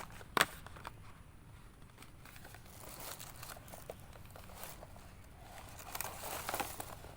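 Plastic ration packaging being handled and crinkled, with one sharp click about half a second in and a louder stretch of rustling near the end.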